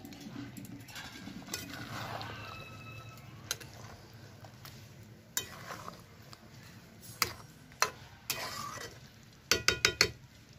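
Flat metal spatula stirring a chicken curry as it simmers in a karahi over a wood fire, scraping and clinking now and then against the pan. A quick run of four or five taps near the end.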